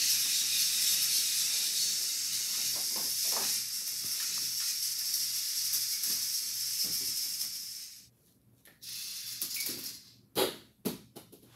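Steady high hiss with a few faint clicks; about eight seconds in it cuts off abruptly, leaving quiet broken by two sharp knocks near the end.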